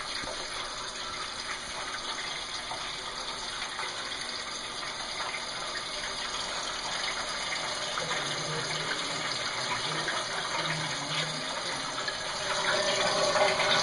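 Old Brastemp Luxo washing machine filling with water: a steady rush of water pouring into the tub, growing a little louder near the end.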